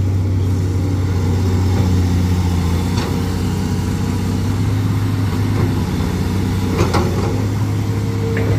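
Crawler excavator's diesel engine running steadily with a low hum, with two faint knocks along the way.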